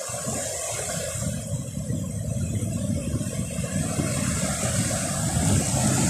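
Black Sea surf washing in over the shallows and breaking on the shore, with wind buffeting the microphone as a low rumble. The noise swells slowly louder.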